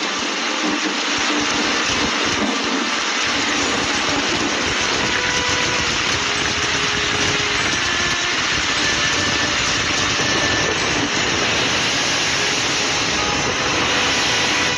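Floodwater rushing: a steady, even rushing noise with no break.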